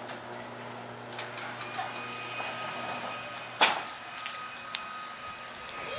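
A steady electrical hum that cuts off with a single loud clunk about three and a half seconds in, with a faint high steady whine in the background.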